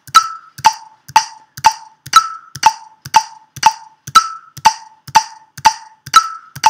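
BandLab's software metronome clicking at 120 beats per minute, two clicks a second, with a higher-pitched accented click on the first beat of every four-beat bar.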